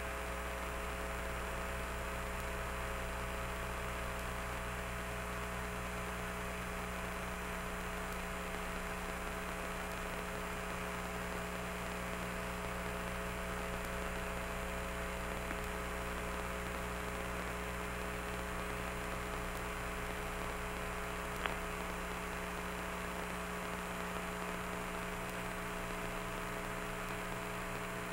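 Steady electrical hum and hiss on the Apollo 15 mission audio recording, with several constant tones and no voices. There is a single sharp click about three-quarters of the way through.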